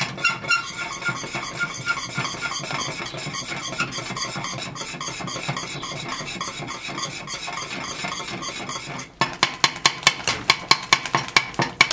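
Wire whisk stirring a thick milk pudding in a stainless steel pot; from about nine seconds in it clatters quickly against the pot's sides, about five strikes a second.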